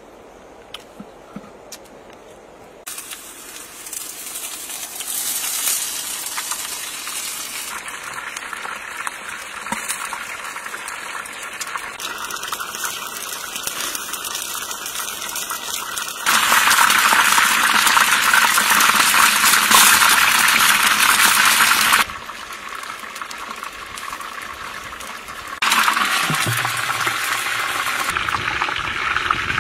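A run of wet cooking sounds in separate cut-together stretches: water and food being handled, with a loud, steady rushing stretch of about six seconds around the middle.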